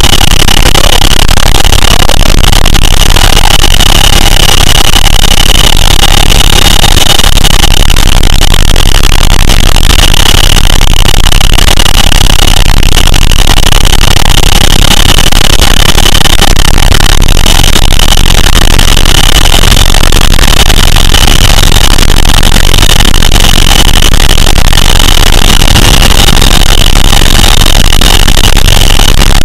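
Cabin noise of a CH-47 Chinook tandem-rotor, twin-turboshaft helicopter in flight, heard inside the cabin with the rear ramp open. It is a very loud, unvarying din: a low rumble and rushing air under a steady high whine.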